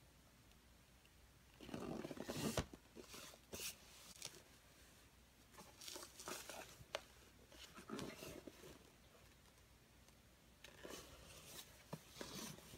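Hands turning a cardboard box over: quiet scrapes and rustles of cardboard with a few light taps, in several short bursts.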